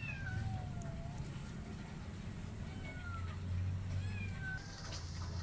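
Kitten meowing about four times, thin high cries that slide down in pitch, over a steady low hum.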